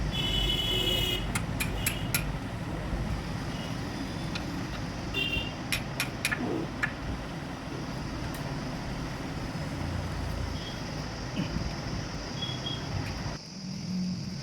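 Light metallic clinks and taps of steel gearbox shift forks and shift rods being handled and fitted into a tractor gearbox, a few ringing briefly, over a steady low rumble that cuts off near the end.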